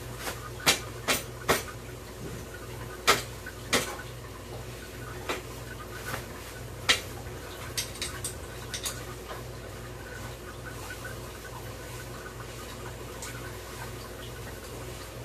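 Scattered sharp clicks and knocks of a road bike's seat post and clamp being handled and fitted, bunched in the first half and sparser later, over a steady low hum.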